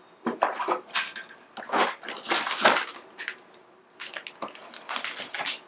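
Rustling and crinkling of packaging being handled as small accessories are taken out of the box, in irregular bursts.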